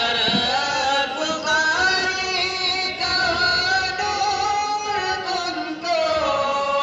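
A single voice chanting a long, drawn-out melodic line, holding notes for seconds at a time with wavering, ornamented pitch and hardly a break.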